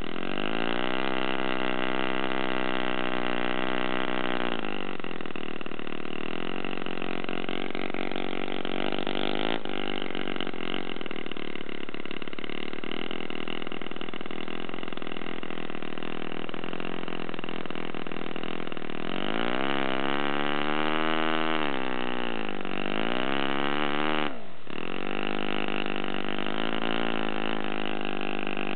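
Freshly rebuilt Enya R1.20 four-stroke glow model engine running on a test stand, turning a propeller. It revs up about half a second in and drops back after about four seconds. Later it revs up and down twice, then dips sharply for a moment and picks back up.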